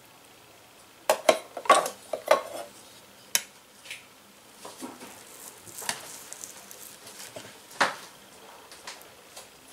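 A small metal knife clicking and knocking against a glass cutting board while cutting cooked chicken. A quick run of sharp clicks comes in the first couple of seconds, then lighter scattered taps, with one more sharp knock near the end.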